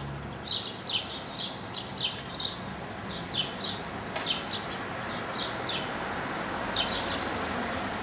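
Small birds chirping, quick short chirps several a second, thinning out in the second half, over a steady background hiss that grows a little louder near the end.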